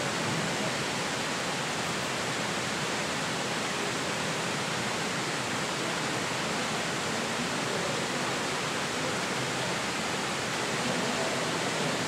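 Steady, even rush of water from Fukuroda Falls, a waterfall 80 to 90 percent frozen into an icefall, with water still running under and beside the ice.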